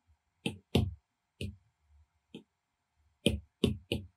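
Apple Pencil tip tapping on an iPad's glass screen: about seven short, sharp taps at uneven intervals, three of them in quick succession near the end.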